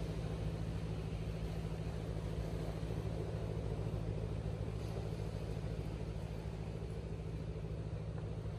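Steady low drone of a distant boat engine on the river, holding an even hum.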